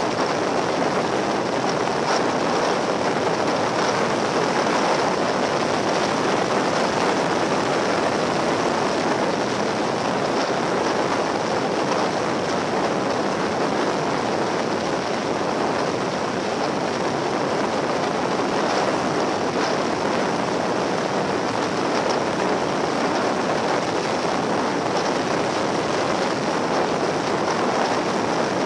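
Steady rush of wind and road noise on a camera mounted on a Yamaha XT1200Z Super Ténéré riding at road speed, with no clear engine note standing out.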